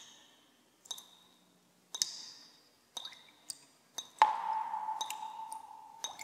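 Sharp clicks about once a second, each with a brief high ring. About four seconds in, a louder strike rings on as a steady tone that slowly fades.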